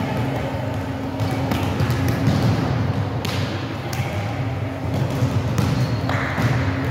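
Volleyballs being struck and bouncing on a wooden gym floor during a warm-up: irregular, scattered smacks and thuds from several balls at once, over a low hum of the hall.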